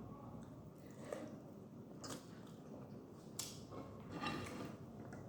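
A person chewing a mouthful of instant noodles, rice and egg close to the microphone, with soft wet smacks and clicks of the mouth every second or so.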